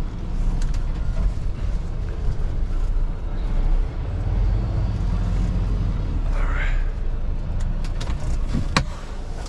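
Semi truck's diesel engine idling, a steady low rumble heard from inside the cab, with a sharp click near the end.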